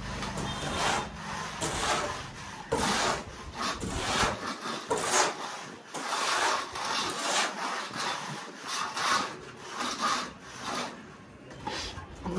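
Masons' tools scraping through wet cement mortar: a mortar hoe dragged across the concrete floor and trowels working plaster onto a wall corner. The scrapes come in irregular strokes, about one or two a second.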